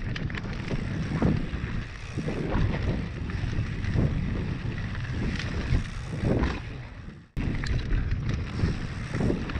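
Wind buffeting an action camera's microphone over the rumble of knobby tyres on a dirt trail and the rattling of a downhill mountain bike at speed, with irregular knocks from bumps. The sound cuts out abruptly for a moment about seven seconds in, then resumes.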